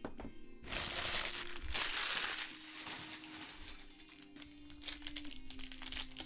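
Plastic foil trading-card pack wrapper crinkling as it is torn open and handled. The loudest rustling comes from about one to two and a half seconds in, with shorter crinkles later.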